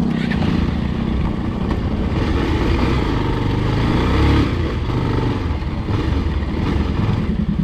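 Motorcycle engine running while the bike is ridden, its note rising and falling and loudest about four seconds in.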